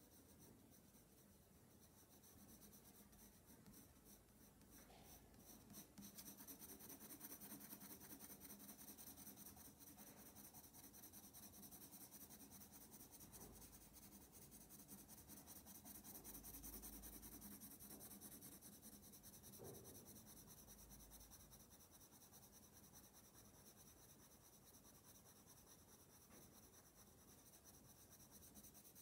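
Faint scratching of a coloured pencil shading across drawing paper in quick, repeated strokes.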